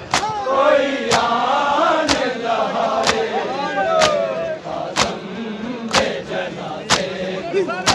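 Crowd of mourners doing matam: open-palm chest beats struck together about once a second, with men's voices chanting and calling between the beats.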